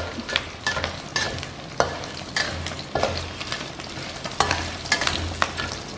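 Wood grasshoppers frying in hot oil in a wok, sizzling with sharp crackles, while a metal slotted spatula scrapes and stirs them against the pan. The crackling is the 'pletik pletik' that shows the grasshoppers are frying crisp.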